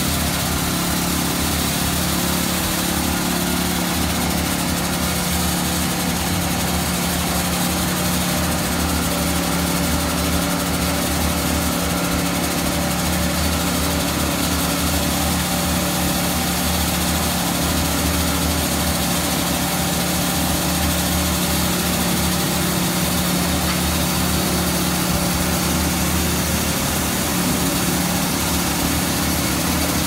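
Diesel engine of a Junjin truck-mounted concrete boom pump running steadily while it pumps concrete up the boom, a constant drone with no change in pitch.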